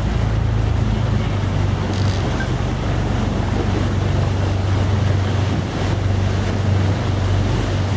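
Excursion boat's engine running steadily, a constant low drone, under a haze of wind and water noise.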